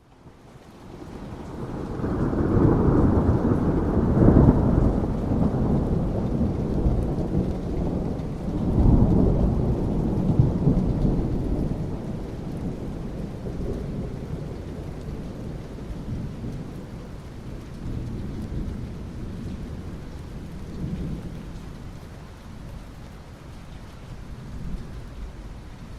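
Rolling thunder over steady rain. The deep rumble builds over the first two seconds, swells twice, then slowly fades away while the rain continues.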